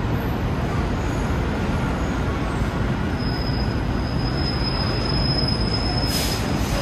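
Roosevelt Island Tramway aerial tram cabin riding on its cables: a steady low rumble, with a thin high whine starting about three seconds in and a short hiss near the end.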